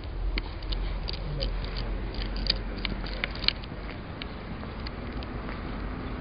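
Footsteps crunching on leaf litter and grit on wet tarmac as someone walks: a run of irregular crisp clicks over a low rumble.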